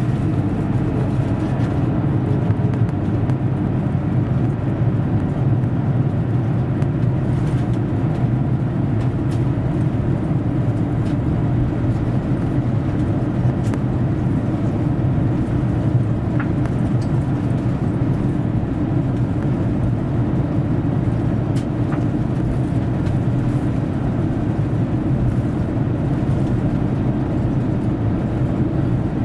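Steady low rumble inside the cabin of an Airbus A350 taxiing after landing: wheels rolling on the taxiway and the Rolls-Royce Trent XWB engines at idle, with a few faint clicks.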